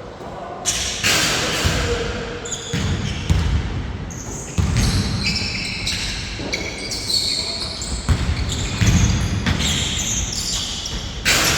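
Basketball game play on an indoor court: a ball bouncing among repeated thumps and knocks, with short high squeaks scattered throughout, echoing in the hall.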